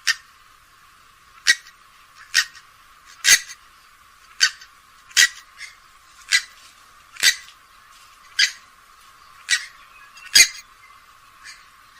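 Grey-headed swamphen giving a series of short, sharp calls, about one a second, some louder and some fainter.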